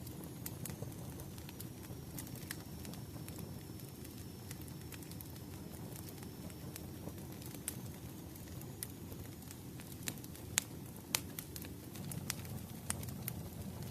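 Wood fire burning steadily: a low rumble of flames with irregular crackles and pops from the burning firewood, two sharper pops near the end.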